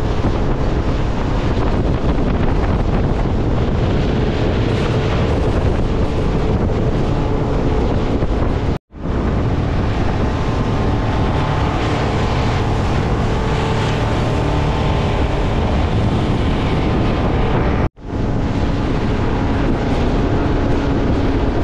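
Outboard-powered fishing boat running at speed: a steady engine drone mixed with water rushing past the hull and wind buffeting the microphone. The sound cuts out for an instant twice.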